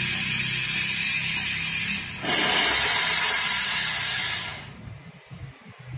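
Steam wand of a Welhome Pro single espresso machine being flushed before steaming milk: a loud, steady hiss of steam, dipping briefly about two seconds in, then shut off at the knob at about four and a half seconds.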